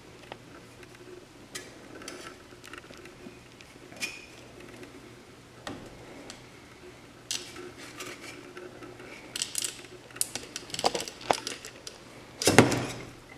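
Scattered light clinks and scrapes as a resin print is worked off a metal 3D-printer build plate over a plastic tub, growing busier in the second half, with one louder clatter near the end.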